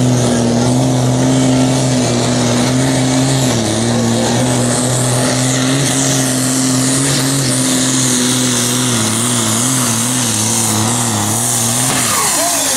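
Zetor 16145 pulling tractor's diesel engine running flat out under load on the sled, its steady note wavering up and down as the engine speed fluctuates. About twelve seconds in the engine note breaks off and falls away.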